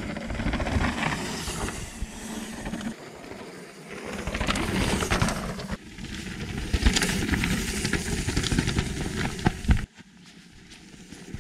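Mountain bike riding over a rough trail: tyre noise with rattles and knocks, the sound changing abruptly three times.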